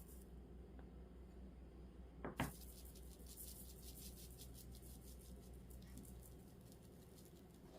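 Faint steady low hum with a single sharp knock about two and a half seconds in; the hum drops away near the end.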